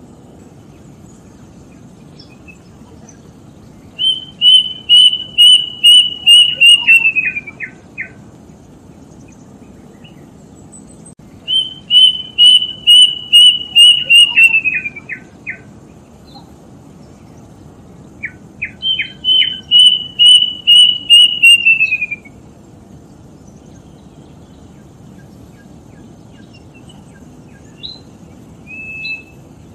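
A bird singing three separate phrases, a few seconds apart. Each phrase is a quick run of about ten loud, clear, high repeated notes that slide lower at the end into a few shorter, lower notes.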